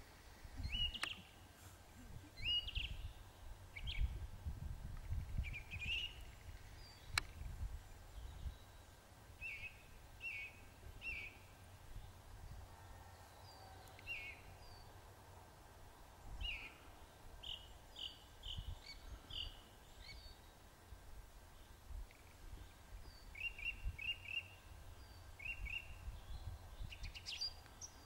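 Wild songbirds giving short, high chirps again and again, in loose runs throughout, over an uneven low rumble that comes and goes.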